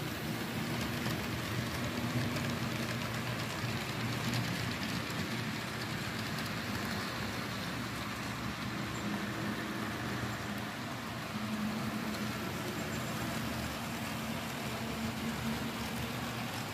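HO-scale model trains running on the layout's track: a steady whir of wheels on rail with a low motor hum and fine, rain-like clicking.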